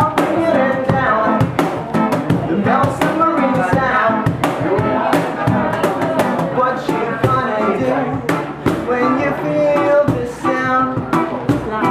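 Small band playing a mellow reggae song live: a man singing over cajon slaps and electric guitar.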